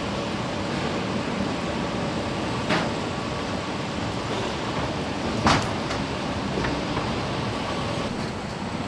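Car assembly plant hall noise: a steady machinery hum with faint steady tones, broken by short sharp knocks about three seconds in and again, louder, a little past halfway.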